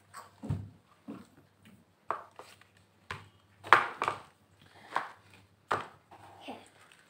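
Irregular sharp plastic clicks and knocks from small toy doll parts being handled, snapped together and set on a table. The loudest comes a little before halfway.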